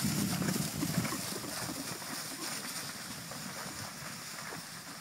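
Hooves of a herd of young horses galloping over grass pasture: a dense drumming of soft thuds, loudest at the start and fading as the horses move away.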